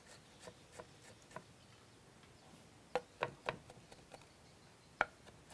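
Knife cutting ginger on a wooden cutting board: scattered light knocks of the blade on the board, three louder ones in quick succession about three seconds in and another about five seconds in.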